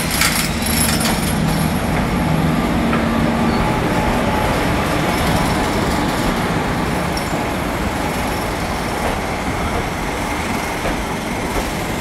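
WAG-5A electric locomotive and the coaches of an arriving express train rolling past close by at walking speed. A low steady hum comes from the locomotive for the first few seconds, then the wheels of the coaches rumble along the rails.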